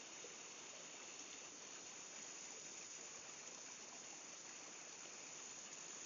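Small stream running over rocks, a steady faint rush of water spilling down a short cascade.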